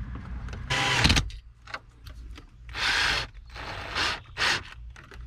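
Power drill driving in dash panel screws, running in several short bursts of about half a second each.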